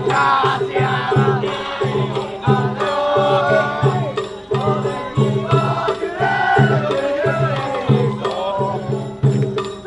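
Festival float music: a steady drumbeat about twice a second with a wavering melody over it, played without pause.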